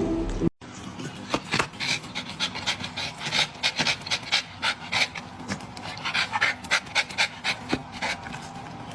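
A dog panting in quick, uneven breaths, several a second.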